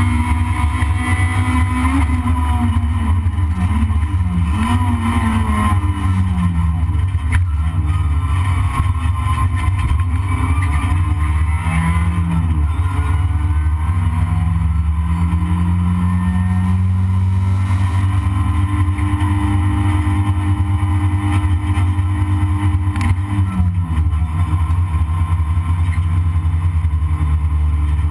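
Toyota Corolla race car engine heard from inside the cabin under hard driving, with a heavy low rumble throughout. Its pitch rises and falls repeatedly with gear changes and corners, holds steady for a long stretch midway, then drops near the end.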